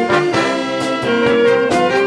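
Wind band playing a lively tune, with trumpets, trombones and saxophones holding sustained chords over a steady drum beat.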